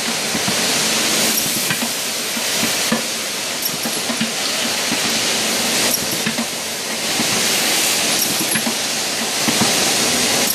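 Semi-automatic riveting machine with an indexing table running: a loud, steady hissing and rattling noise that swells and eases every few seconds, with scattered sharp clicks.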